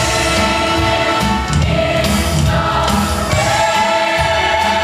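A large stage-musical chorus singing with instrumental accompaniment, holding long notes, with a new chord coming in a little past the middle.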